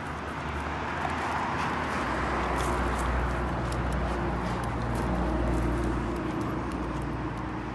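Outdoor rushing noise with a low rumble beneath, swelling slowly to a peak midway and then easing off, with a few faint ticks over it.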